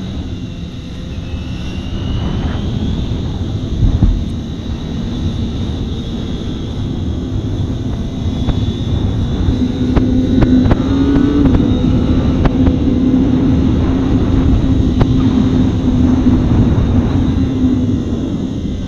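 Kawasaki ZX-25R's 249 cc inline-four engine running at steady road speed, with a rush of wind noise under it. The engine note grows stronger about halfway through and holds. There is one low thump about four seconds in.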